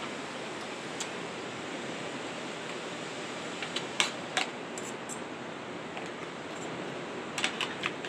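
Steady rushing noise of surf and wind, with a few sharp clicks or taps: two about four seconds in and a quick cluster near the end.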